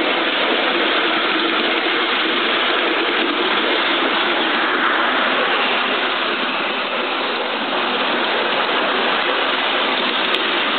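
5-inch gauge live-steam model of a King Arthur class locomotive running along its track, a steady rush of exhaust, motion and wheels on the rails.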